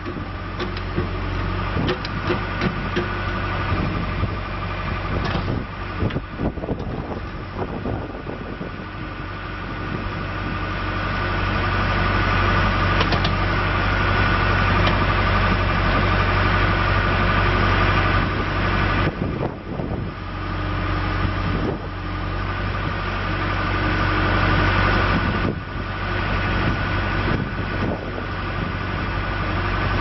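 John Deere 310J backhoe loader's 4045DT four-cylinder turbo-diesel running as the backhoe arm is worked, the engine note swelling and easing with the load. A steady higher whine sits above the low engine hum; the sound grows louder through the middle and dips briefly twice later on.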